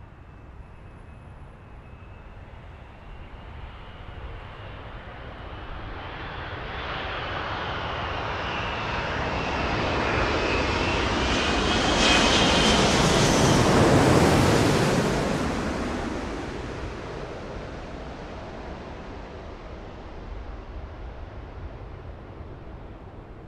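Jet airliner's underwing turbofan engine heard from inside the cabin on the approach to landing: a rushing noise with a wavering whine. The sound swells to its loudest a little past halfway, then eases off.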